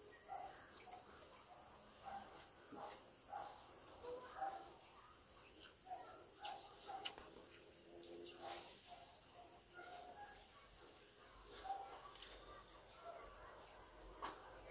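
Soft, scattered mouth and hand sounds of two people eating with their fingers: chewing, lip smacks and fingers working through rice and grilled chicken. Underneath runs a faint, steady high-pitched hum.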